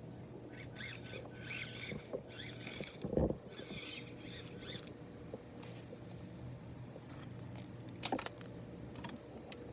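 Small Axial SCX24 RC crawler running over rocks: a low steady motor hum with scattered clicks and scrapes of tyres and chassis on stone, and a thump about three seconds in and another near eight seconds.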